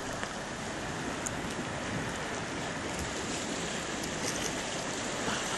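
Steady wash of small sea waves lapping and splashing against the rocks of a cove.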